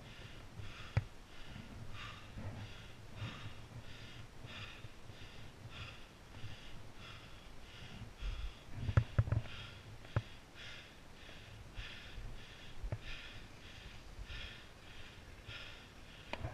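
Skis hissing and scraping over bumpy packed snow, with quick heavy breathing about twice a second. A few sharp knocks come as the skis hit bumps, loudest about nine to ten seconds in.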